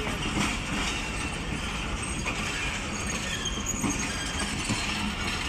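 Passenger train running with a steady rumble and rail noise, with brief faint high squeals from the wheels around the middle.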